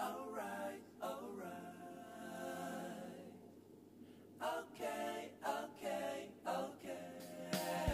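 Unaccompanied singing: a voice holding and bending long notes, with a short pause a little before halfway through.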